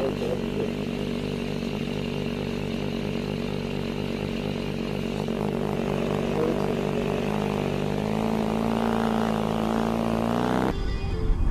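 Motorcycle engine running at low speed with a steady note, then accelerating with a rising pitch from about seven seconds in. Near the end it cuts off suddenly into a louder low rumble.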